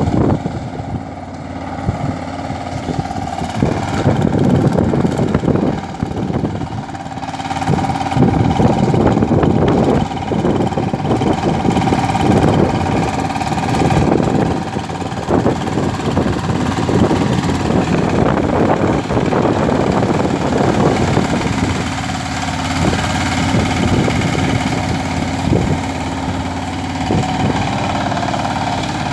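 Kirloskar power tiller's single-cylinder diesel engine running steadily under load as the tiller works through a flooded paddy field, its loudness swelling and easing as it moves.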